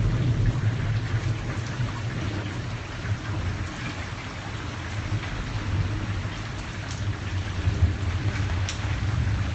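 Steady rain falling, with a low rumble of thunder rolling underneath that swells and fades. Two sharp drop ticks land near the end.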